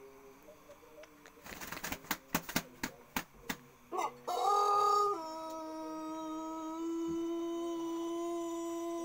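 Pelung rooster beating its wings in a quick run of sharp flaps, then crowing: the call rises, comes out loud, then drops about five seconds in to a long, steady, low held note, the drawn-out crow this breed is kept for.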